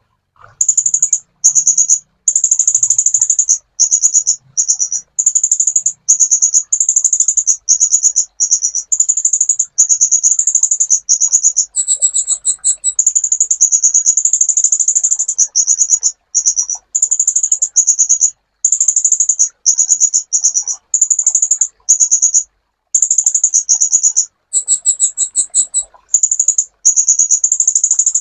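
Sunbird (kolibri ninja) singing: very high-pitched, rapid trilled phrases repeated one after another with brief pauses. Twice, about twelve and twenty-five seconds in, a slightly higher, different phrase breaks in.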